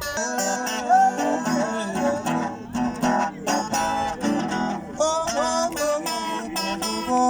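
Music led by a strummed and plucked acoustic guitar, with notes changing steadily throughout.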